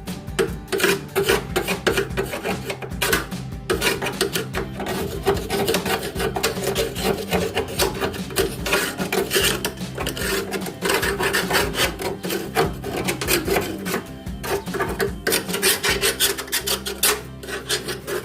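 Rusty steel on a washing machine being scrubbed by hand, a continuous run of rapid, rough rasping strokes as the rust and flaking paint are taken off for repainting.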